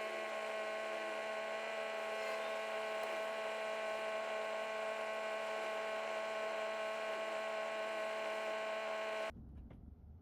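A steady electrical hum made of many pitched tones at once, unchanging, that cuts off suddenly about nine seconds in, leaving near quiet.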